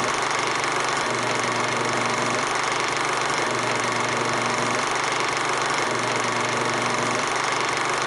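Sound effect of a film projector running: a steady whirring clatter, with a low hum underneath that comes and goes every second or two.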